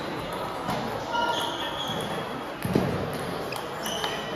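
Table tennis balls clicking off bats and the table, with short shoe squeaks on the hall floor and one louder thud a little under three seconds in, all echoing in a large hall.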